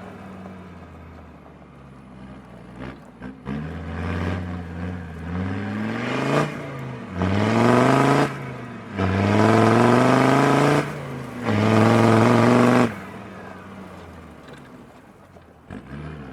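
Land Rover Defender 90 Td5 five-cylinder turbodiesel, remapped for more power, accelerating hard in several bursts, its pitch climbing with each one and falling back between them. A couple of sharp clicks come about three seconds in.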